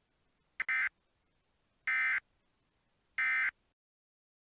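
Emergency Alert System end-of-message data bursts: three short buzzing digital-tone bursts, about 1.3 seconds apart, which signal the end of the alert.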